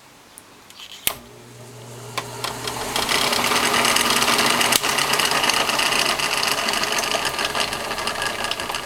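Drill press motor and belt drive switched on with a click about a second in, spinning up over the next two seconds, then running steadily at the 2180 RPM pulley setting with a fast, dense rattle that is mainly belt noise.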